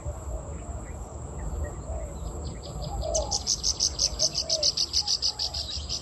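An insect chirps in a fast, even pulse of about seven high chirps a second. The chirping starts about two seconds in and gets louder a second later, over a steady high insect whine. Faint, short, low bird calls come and go underneath.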